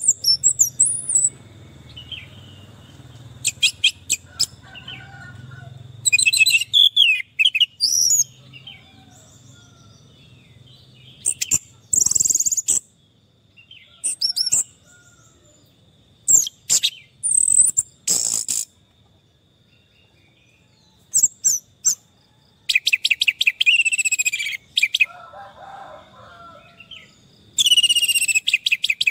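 Orange-headed thrush singing: loud bursts of rapid, varied whistled and twittering phrases, separated by pauses of a second to a few seconds. One run of quickly repeated falling notes comes near the end. A faint steady high tone sits beneath it throughout.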